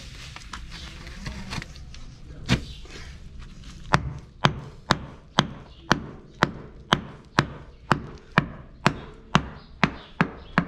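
A hand hammer knocking bricks into the side opening of a furnace to close it: one blow, then a steady run of about two blows a second, over a low steady rumble.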